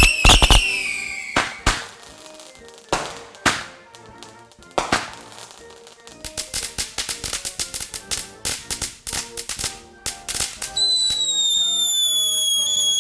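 Firework bangs: a cluster of sharp cracks at the start, then single bursts spaced a second or so apart. A rapid string of small firecracker snaps follows in the middle. Near the end a whistling firework gives a steady high whistle that falls slowly in pitch. Background music plays under it all.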